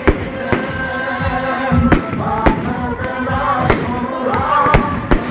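Aerial firework shells bursting in quick succession, a sharp bang about every half second, over music with singing playing underneath.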